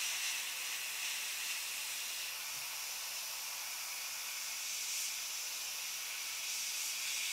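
Airbrush spraying diluted light turquoise paint, a steady hiss of compressed air.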